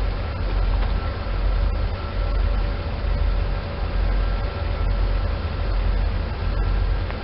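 Wind buffeting the microphone in an uneven low rumble, over a SEPTA Silverliner electric multiple-unit train running away into the distance with a faint steady hum.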